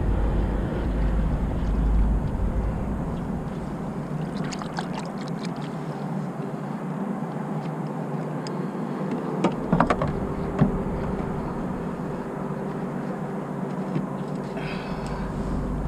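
Light clicks and a couple of sharper knocks of fishing gear being handled aboard a kayak, over a steady outdoor hiss with a faint hum and some low wind rumble on the microphone.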